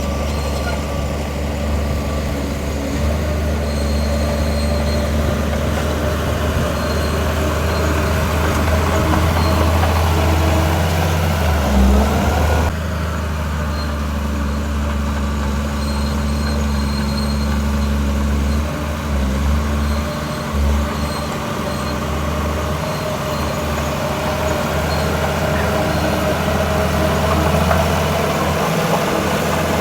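Heavy diesel engines of earthmoving machinery (bulldozer and dump trucks) running steadily with a deep low hum. There is a brief louder knock near twelve seconds in, and the sound changes abruptly a moment later.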